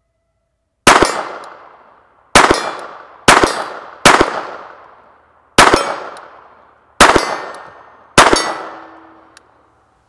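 Seven shots from a Beretta Bobcat Model 21A .22 LR pocket pistol fired at an uneven pace, each sharp crack trailing off over about a second.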